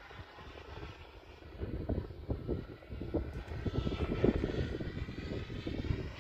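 Turbine-powered RC model jet in flight, its high jet whine fading away and then growing louder again from about halfway through as it comes back around. Irregular low buffeting runs underneath.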